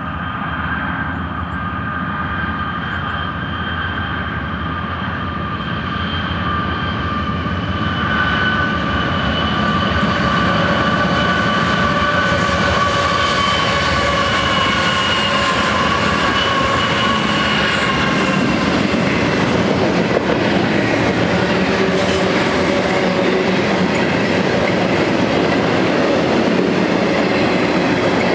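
A group of BNSF GE diesel locomotives approaching and passing, their engines building to a loud running sound with a high whine that falls slightly in pitch as they go by. This is followed by the steady rolling rumble and wheel clatter of double-stack container well cars.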